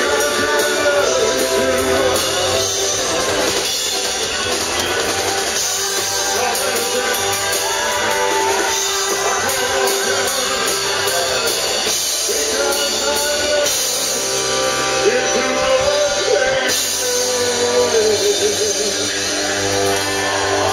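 Live band playing a song with electric bass and guitar, and a male lead singer singing into a handheld microphone.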